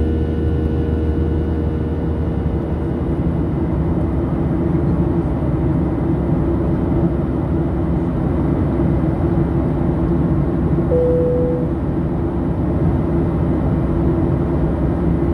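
Steady cabin noise inside a Boeing 737 in flight, heard from a window seat beside the jet engine: an even rush of engine and airflow noise with a low drone. A single short tone sounds about eleven seconds in.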